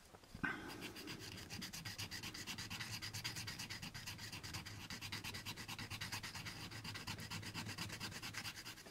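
A small styrene plastic kit part rubbed quickly back and forth on a hand-held sanding block: an even run of rapid scratchy strokes, several a second. It starts about half a second in and stops just before the end. The sanding is grinding down the lump left by the parts-tree connection on a plastic alignment pin.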